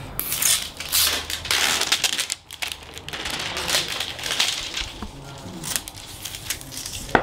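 Clear plastic wrapping being peeled and pulled off a box, crinkling and rustling in irregular bursts, with a short lull about two and a half seconds in. A single sharp tap near the end.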